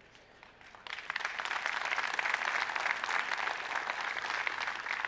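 Audience applauding: a crowd's clapping starts about a second in and keeps going at a steady level.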